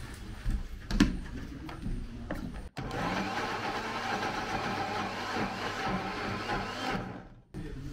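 A few knocks and clatters, then, after a cut, an electric blender running steadily for about four seconds and cutting off suddenly, most likely blending the plantain batter.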